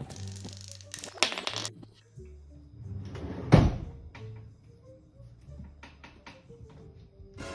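Light background music with steady notes, overlaid by household knocks: a brief clatter about a second in and a loud thump about three and a half seconds in.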